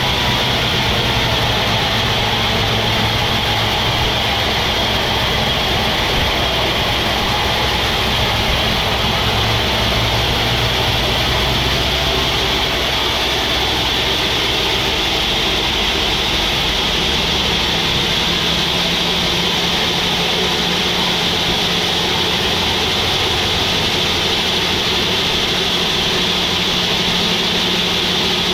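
Band sawmill running: a steady low engine drone under a constant high hiss, the drone's pitch shifting a little about halfway through.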